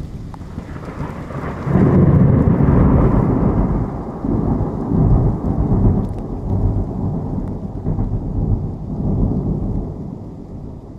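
Thunder from a lightning strike: a low rumble that builds about a second in, breaks loudest near two seconds, then rolls on in several swells before fading near the end. Rain falls throughout.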